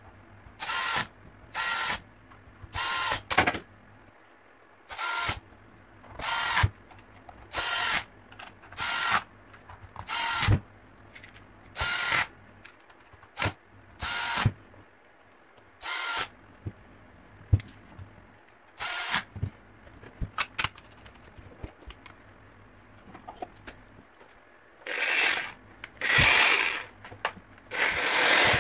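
Power drill motor run in short bursts of about half a second, over a dozen times at uneven gaps, then a few longer runs near the end.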